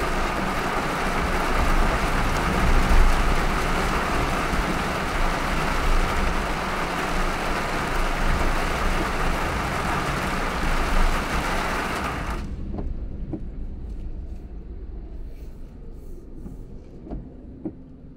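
Car driving in a heavy downpour: a loud, dense hiss of rain and tyre spray over low road rumble. About twelve seconds in the hiss cuts off suddenly, leaving a low rumble that fades, with a few faint ticks.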